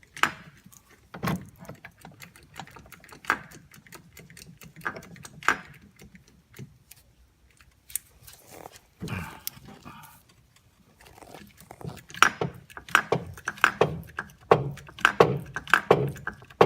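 Scattered metallic clicks and clanks from hand tools and a hydraulic bearing-press setup being worked on a wheel hub. Near the end they become a run of quick repeated clicks, a few a second.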